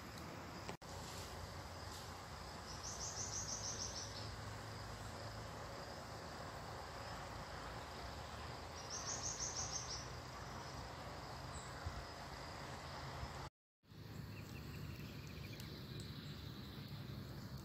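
A cricket-like insect giving two short, high, pulsed trills several seconds apart over a steady low hiss. After a brief dropout near the end, a fainter, lower trill sounds once.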